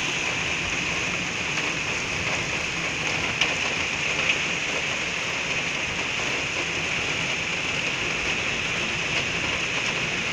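Heavy rain pouring down steadily, with two brief sharp ticks about three and a half and four and a half seconds in.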